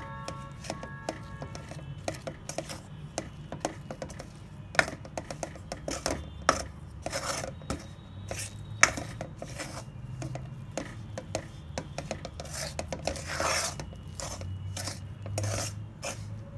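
Metal spoon scraping and clinking against a metal pan in quick, irregular strokes as it mashes mawa into powdered sugar, with one longer, louder scrape near the end.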